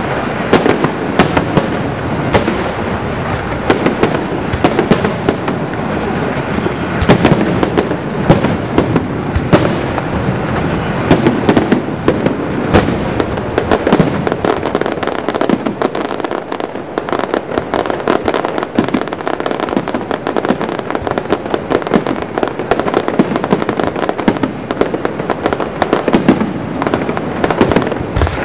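Aerial fireworks display firing continuously: a dense, unbroken run of bangs and crackling shell bursts, with louder reports standing out every second or so.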